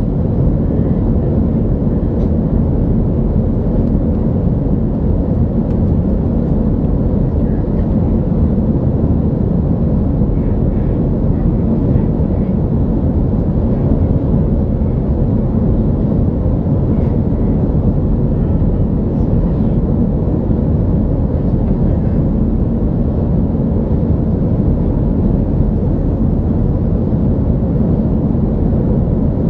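Steady, low airliner cabin noise: engine drone and airflow heard from inside the passenger cabin, unchanging throughout.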